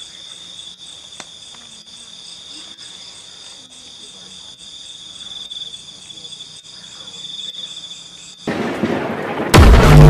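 Night insects trilling steadily at one high pitch, with faint low voices beneath. About eight and a half seconds in, a loud rush of noise sets in, and a second later a heavy, very loud boom hits as the logo animation starts.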